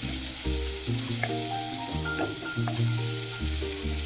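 Sliced onions sizzling in hot oil in a non-stick pan, stirred with a wooden spatula that scrapes lightly a couple of times. The onions are being softened gently, not browned. Background music with low held notes plays underneath.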